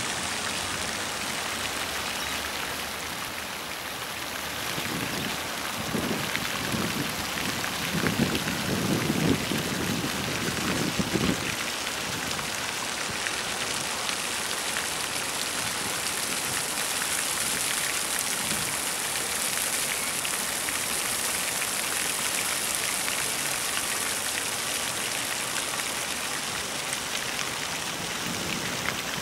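Fountain water splashing steadily, with a few low rumbles between about six and eleven seconds in.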